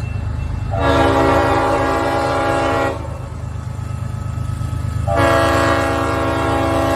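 Leslie RS5T five-chime air horn on a CSX GE ES44AH locomotive sounding a long blast of about two seconds, then after a two-second pause a second long blast starting about five seconds in. A low, steady rumble from the train runs underneath.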